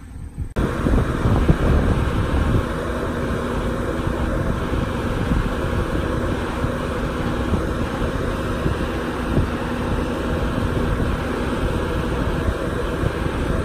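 Truck-mounted crane's diesel engine running steadily, with wind rumbling on the microphone; the sound cuts in abruptly about half a second in.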